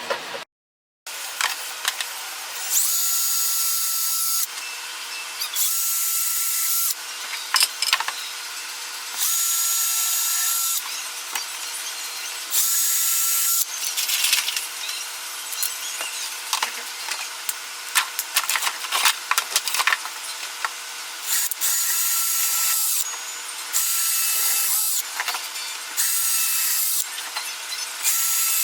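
Drill press running steadily while a bit is plunged into wood again and again, boring a row of holes: about eight cuts of one to two seconds each, with pauses between them and a longer pause midway.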